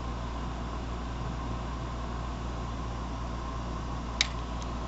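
Steady low hum and hiss of background noise, with one sharp click about four seconds in and a fainter one just after: a finger tapping the plastic toy bricks.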